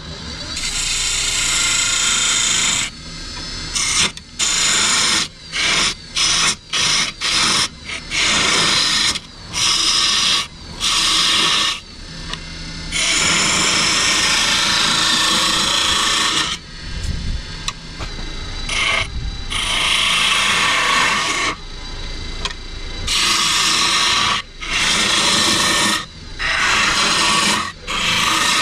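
Hand-held gouge cutting a spinning live oak blank on a wood lathe: a loud hissing shear of shavings coming off in repeated passes, each breaking off briefly as the tool lifts away. Many short quick passes, with a longer continuous cut around the middle.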